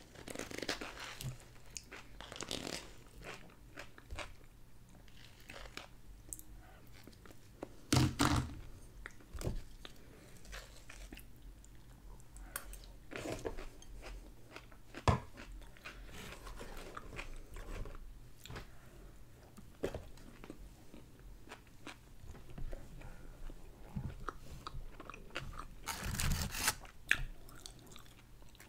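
Close-up eating sounds: chewing and crunchy bites, the loudest bites about eight seconds in and near the end, where crispy fried chicken is being eaten. A single sharp click about halfway through.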